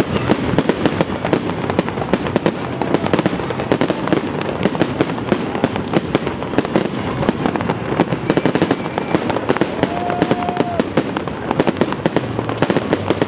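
Fireworks display: a dense, continuous barrage of bangs and crackles from aerial shells bursting overhead.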